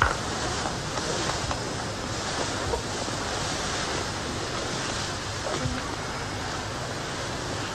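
Steady hiss of an old recording, with no distinct sound event over it.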